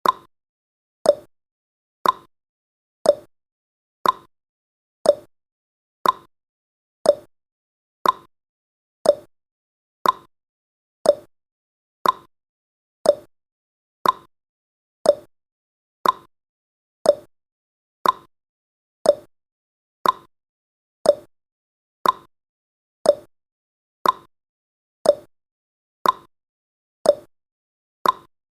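Countdown timer's ticking sound effect: one short, sharp tick each second, steady and evenly spaced.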